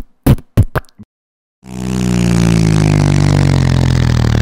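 A few short bursts of sound in the first second, a brief silence, then a vehicle engine comes in loud and runs steadily, its pitch sagging slightly lower.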